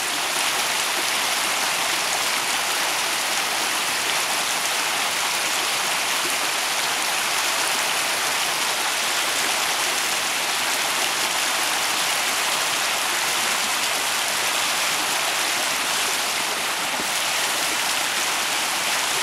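Shallow stream running over rocks: a steady, unbroken rush of water.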